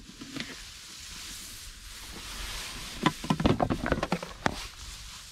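Handling noises: a soft rustling hiss, then a quick flurry of clicks and knocks about three seconds in as a foam lid and a plastic tub are handled among rice plants.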